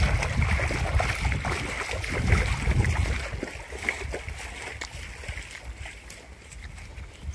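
Bare feet wading and splashing through shallow water, giving way to quieter steps on grass about halfway through, over a low wind rumble on the microphone.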